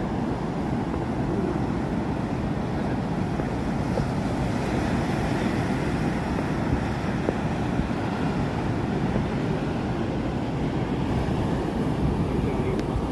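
Steady wash of ocean surf breaking on a sandy beach, with wind rumbling on the microphone.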